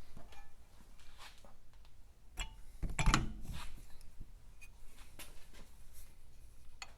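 Engine parts and hand tools being handled on a workbench: scattered light clicks and taps, with a louder clunk about three seconds in.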